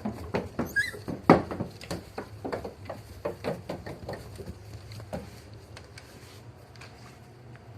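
Wire-haired dachshund puppies scuffling about, with many quick clicks and knocks and a brief high squeak just under a second in; the scuffling thins out after about five seconds.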